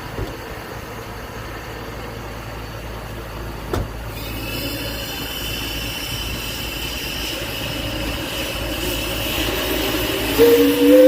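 Steam engine rumbling at rest with a couple of knocks, then a thin, high whistling hiss that builds slowly from about four seconds in. Near the end the big ex-factory steam whistle opens with a sudden, very loud, deep chord of two tones.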